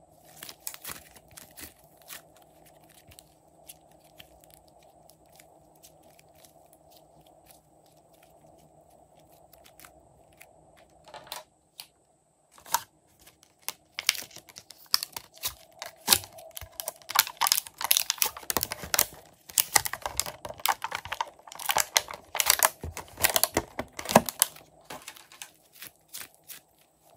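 Hands squishing and stretching glossy slime, giving sticky clicks and pops. From about 14 s to 24 s the crackling becomes dense and much louder while pink slime is handled in a clear plastic tray, then it thins out again.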